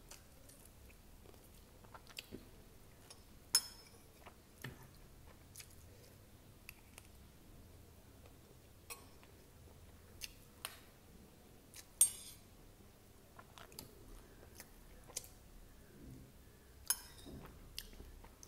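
Close-miked chewing of poha (flattened rice): wet mouth clicks and small crunches at irregular moments, with a few much sharper clicks standing out.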